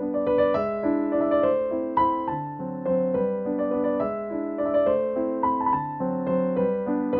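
Background piano music: a gentle melody of single notes over held lower chords.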